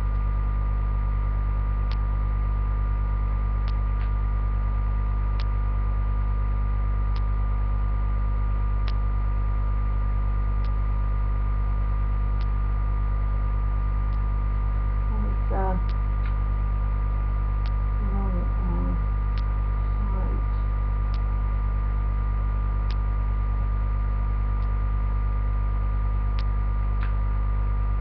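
Steady electrical mains hum in a webcam recording, a constant low buzz with many overtones, with a faint tick repeating about every second and three-quarters.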